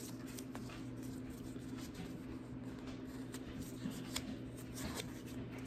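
Faint crinkles and small ticks of a folded cardstock mini face mask being bent and curved in the fingers, with a low steady hum underneath.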